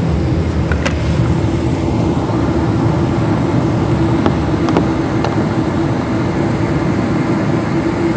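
Steady cabin noise aboard a Boeing 777-200LR: a loud, even low rumble with a constant hum, and a few faint clicks.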